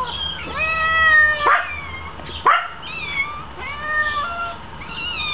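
Domestic street cats meowing for food, about six meows in a row: one long drawn-out call near the start, then shorter rising and falling ones.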